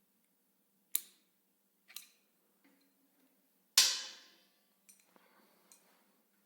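Sharp clicks and clacks from an air hose quick coupling being handled as the air gun is pulled off the hose: two clicks a second apart, a louder clack with a short fading ring nearly four seconds in, then a few small clicks.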